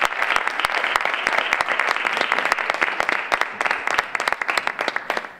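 Applause from an audience and the people on stage: dense, sustained hand clapping that dies away near the end.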